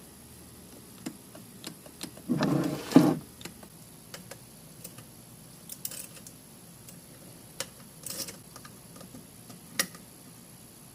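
Scattered sharp clicks and light taps as jumper-pack leads are put to the terminals of a Porsche 928 windshield washer pump, with a short louder rustle about two and a half seconds in. No motor runs: the pump is stuck.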